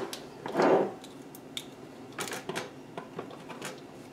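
Instant Pot electric pressure cooker lid being set on and twisted closed: a short scrape of the lid on the rim, then several light plastic clicks as it is seated and locked for sealing.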